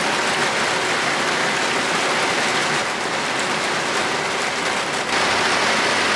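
Heavy rain falling steadily as an even hiss, with a slight step up in loudness about five seconds in.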